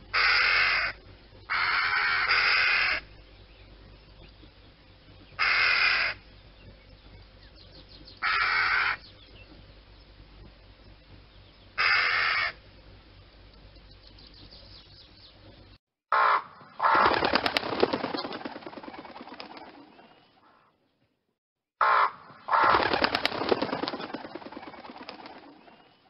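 Crow cawing: five separate caws a few seconds apart, the second one longer. After a short break, two longer drawn-out calls, each led by a brief note, that trail off.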